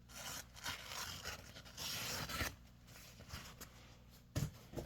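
Scraping and rustling handling noises, then a sharp click about four and a half seconds in.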